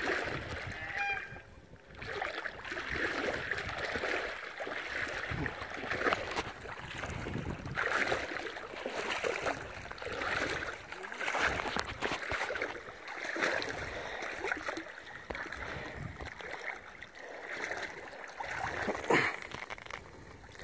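Shallow lake water sloshing and splashing in irregular swells, as from wading or moving through the water.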